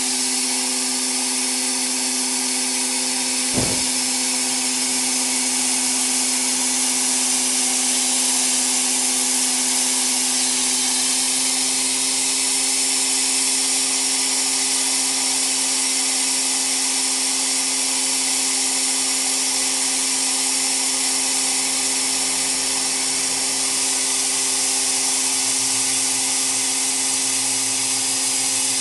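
Steady hiss of a sandblasting jet blasting a steering-rack shaft with sand-laden compressed air inside a steering-rack repair machine, over a steady machine hum. A single click about three and a half seconds in.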